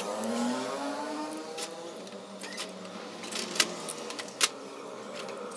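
A mechanical whirring hum whose pitch shifts during the first second, then settles and fades. Over it come several sharp clicks and knocks of metal parts and tools being handled on a workbench, the two loudest about three and a half and four and a half seconds in.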